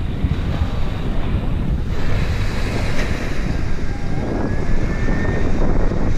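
Wind buffeting the microphone over breaking surf. Under it, a faint thin high whine comes in about two seconds in and fades out a second before the end: a jet airliner on its landing approach.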